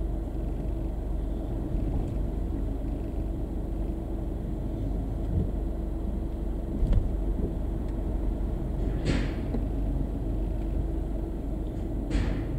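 A car's engine running with a steady low rumble, heard from inside the cabin as it waits and draws up in a car wash bay, with two short sharp hisses of air about three seconds apart near the end.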